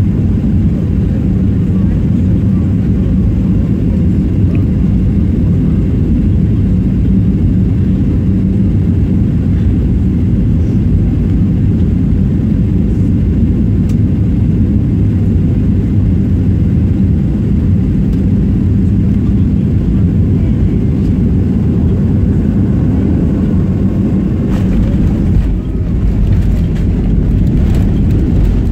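Airliner cabin noise: the jet engines and airflow make a loud, steady rumble with a faint hum. Near the end there are a few knocks and rattles and a brief dip in the noise.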